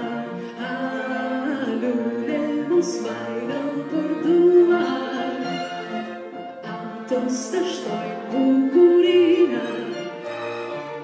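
A woman singing a melody with vibrato, accompanied by a string quartet (two violins, viola and cello) and piano.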